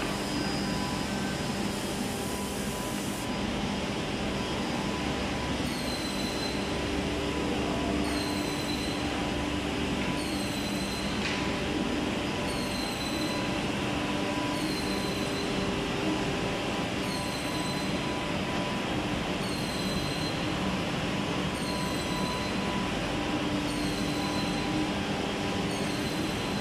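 IMAI F586CH edge banding machine running: a steady mechanical hum of its motors with several held tones. From about six seconds in, a short high tone repeats roughly every two seconds.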